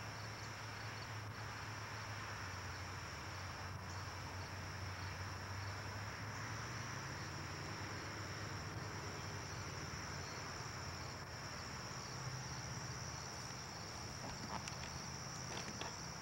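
Steady, high-pitched insect chorus, like crickets trilling, over a low steady hum.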